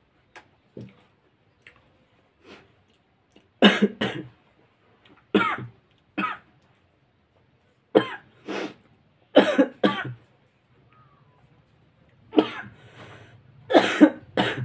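A man coughing: about ten short, sharp coughs in clusters of two or three, starting about four seconds in, with throat clearing among them.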